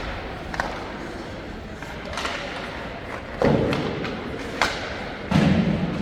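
Ice hockey play in an arena: a few sharp knocks, and two heavier thuds in the second half, each with a short low boom after it, of the puck and players hitting the rink boards.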